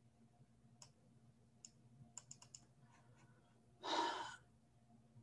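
Faint computer mouse clicks, a few scattered and then a quick run of them around two seconds in, followed by a short breath about four seconds in, which is the loudest sound. A faint steady hum sits underneath.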